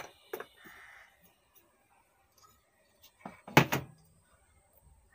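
Handling knocks as a power amplifier's output board and its metal heatsink are laid back down into the chassis: a couple of single knocks near the start, then a quick, louder cluster of knocks about three and a half seconds in.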